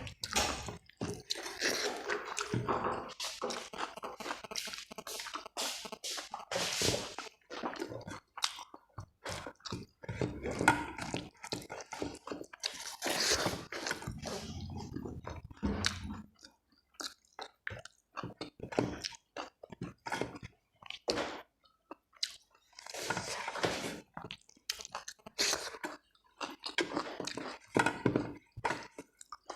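A person chewing and biting into a meal of rice, dal, fried potatoes and cabbage salad close to the microphone, in irregular bursts with short pauses.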